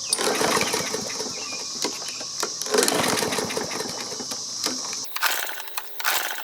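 Briggs & Stratton walk-behind mower engine being pull-started twice, turning over with a rapid ticking rasp but not catching.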